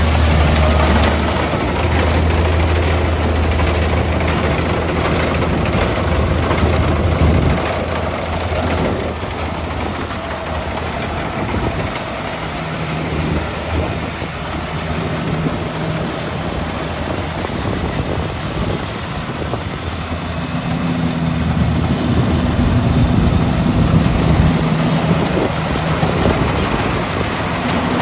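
Kubota combine harvester running in a rice field, a continuous engine drone. The low drone eases about eight seconds in and builds again in the last third.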